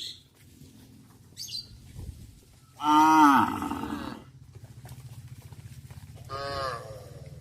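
Cattle mooing: one long, loud moo about three seconds in and a shorter moo near the end.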